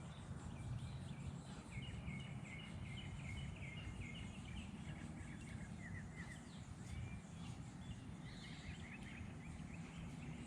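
Songbirds singing several quick trilled phrases of rapidly repeated chirps over a steady low rumbling background noise.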